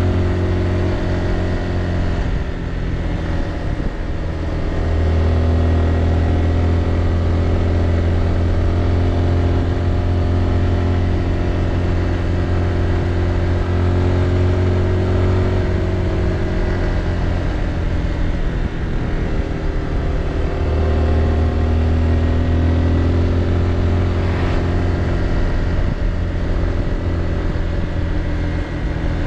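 Motorbike engine running under way, its pitch dropping and rising again a couple of times as the bike slows and picks up speed, over a steady rush of wind and road noise.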